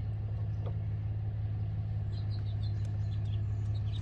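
A steady low hum, like a vehicle engine idling, running unchanged throughout, with a few faint short chirps and ticks over it in the second half.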